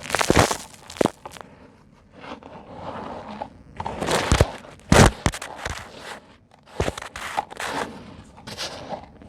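Dry lumps of sand and concrete being crushed by hand in a tub, in clusters of sharp crunches and gritty crumbling with short pauses between.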